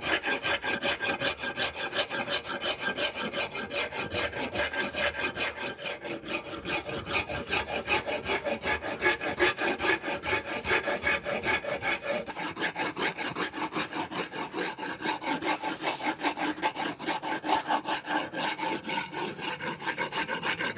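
Hand wood rasp scraping along a hickory axe handle in a steady run of quick, repeated strokes, shaping the handle down to size.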